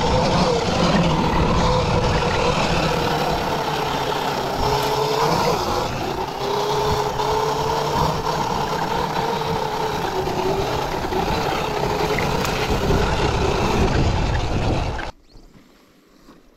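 Sur-Ron electric dirt bike on the move: a steady motor whine that wavers slightly in pitch over a loud rushing noise. It cuts off suddenly about fifteen seconds in.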